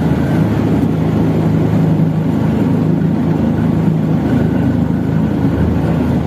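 A river boat's motor running steadily as the boat moves along, a continuous low drone.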